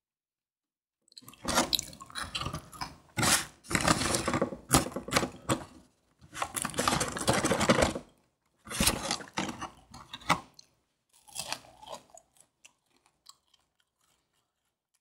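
Crispy fried chicken crunching in several bouts of a few seconds with short gaps, starting about a second in and thinning to scattered faint crackles over the last few seconds.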